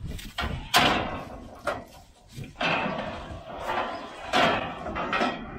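Clanking and scraping of a John Deere combine's steel access ladder being pulled out and swung down, in several separate bursts. The sharpest clank comes a little under a second in.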